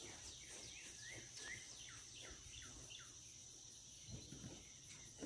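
Faint rural outdoor ambience: a bird giving a series of short falling chirps over a steady high insect drone.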